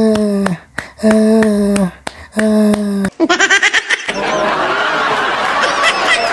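Four drawn-out vocal-like notes, each under a second and falling slightly in pitch at the end. About three seconds in comes a quick stuttering laugh, and then a crowd laughing and chattering.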